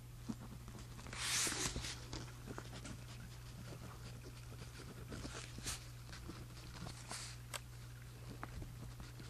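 Pen writing on journal paper: short, scratchy strokes here and there, with a louder, longer rustling scratch about a second in, over a steady low hum.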